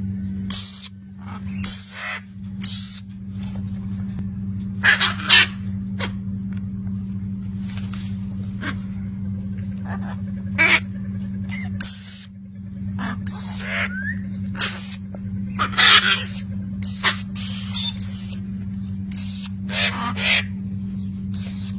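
Parrots squawking: short, harsh calls at irregular intervals, a dozen or more, over a steady low hum.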